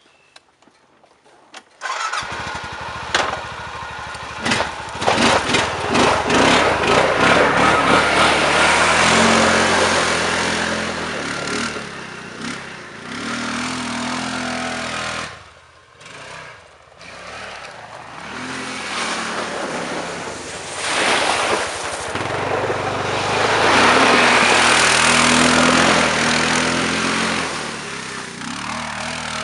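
Honda Rincon ATV's single-cylinder engine revving hard under load, coming in suddenly about two seconds in, dropping away briefly midway and rising again.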